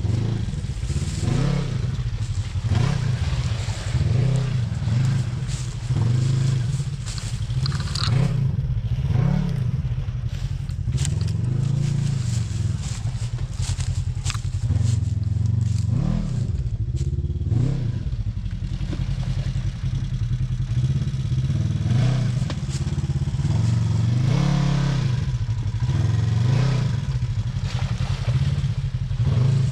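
Off-road vehicle engine working through terrain, its pitch rising and falling over and over as the throttle is opened and let off, with scattered knocks and clatter.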